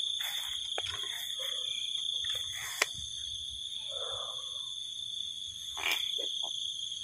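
Steady high-pitched chorus of wild animals, with a single sharp click about three seconds in and a short louder sound near six seconds.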